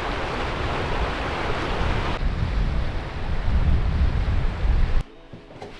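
Wind blowing across the microphone: a steady rushing noise that turns into a gusty, deep rumble about two seconds in, then cuts off abruptly about five seconds in.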